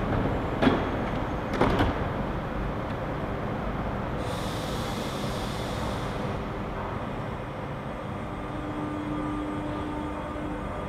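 MI84 RER commuter train at the platform with its doors shutting: two sharp knocks in the first two seconds, then a hiss of about two seconds. Near the end the train begins to pull away over steady rumbling noise, with a low steady hum.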